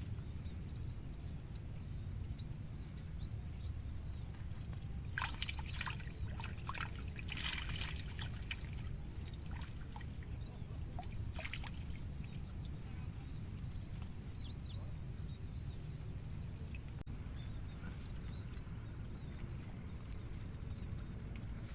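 Riverside ambience: a steady high-pitched drone of insects over a low rush of water or wind. There are a few brief rustling clicks about five to eight seconds in and again around eleven seconds.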